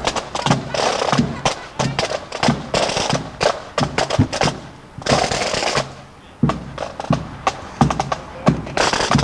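Marching pipe band's snare and bass drums playing: rapid sharp snare strokes over bass drum beats, with longer snare rolls about three seconds in and again around five seconds.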